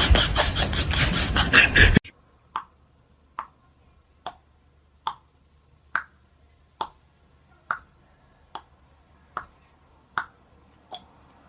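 Loud, dense mixed noise cuts off abruptly about two seconds in. Eleven sharp snaps follow at an even pace, a little more than one a second, each short and clear against near silence.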